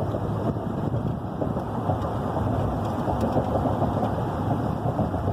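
Steady road and wind noise of a car driving at highway speed, heard from inside.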